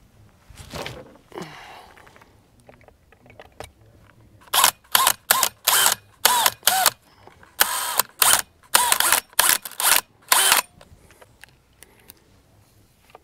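DeWalt cordless drill/driver run in a rapid series of short trigger pulses, a dozen or more, its motor whining up and down in pitch with each one, as it eases stainless steel screws through a tail light into the camper's aluminium wall.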